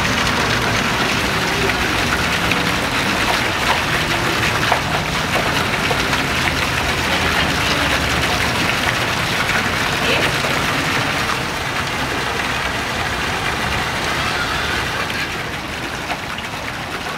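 Steady splashing of falling water from a fountain jet into a shallow pool, with a low rumble beneath.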